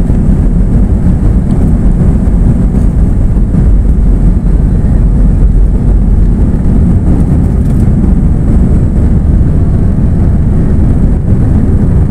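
Airbus A320's jet engines at takeoff thrust, heard from inside the cabin as a loud, steady low rumble while the airliner rolls down the runway and lifts off.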